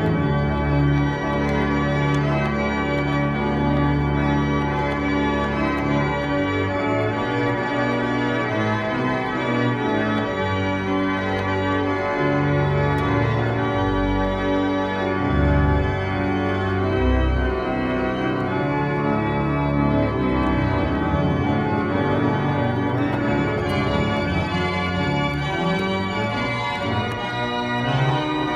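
Two-manual church organ playing a Christmas medley: sustained chords on the manuals over long held low bass notes.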